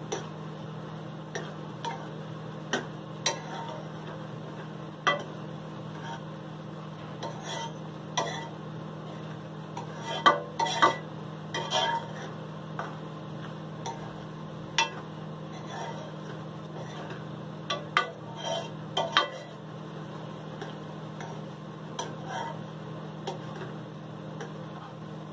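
A metal spatula stirring and tossing vermicelli in a non-stick kadai: irregular clinks and scrapes against the pan, busiest about ten to twelve seconds in and again near eighteen seconds in, over a steady low hum.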